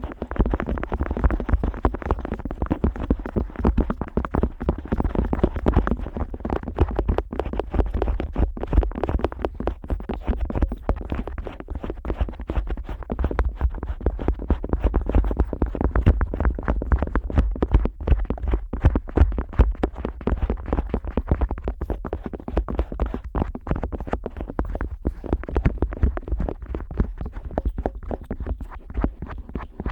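An otoscope rubbing and scraping over the ear flap of a Neumann KU100 dummy-head microphone, heard right at the ear. It makes a dense, continuous run of quick scratchy strokes over a low rumble.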